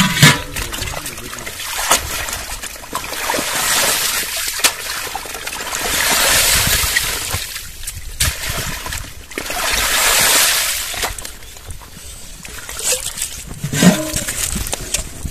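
Shallow muddy pond water splashing and sloshing as it is scooped and stirred by hand, coming in long swells that rise and fall every few seconds.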